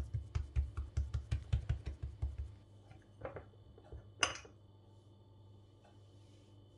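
Fingertips quickly patting and pressing a ball of soft dough flat on a countertop: a run of soft thumps, about five a second, that stops after about two and a half seconds. A few faint handling sounds follow, with one brief brighter scrape about four seconds in as a spoon scoops cheese filling from a bowl.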